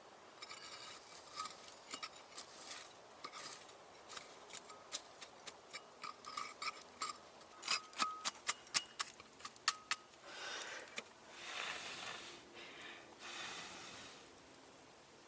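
Handling noise: a run of small sharp clicks and taps, some with a brief light metallic ring, then rustling scrapes over the last few seconds.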